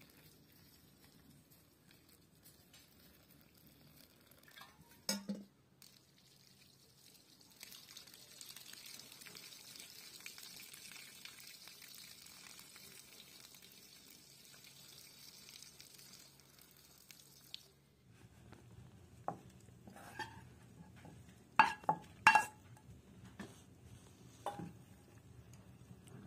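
Wooden spoon stirring a metal pan of simmering broth and dried greens on a wood stove, clinking and knocking against the pan in a run of sharp strikes, loudest near the end. Before that, water is poured from a kettle onto dried greens in a metal bowl, then a sharp knock and a steady hiss lasting about ten seconds.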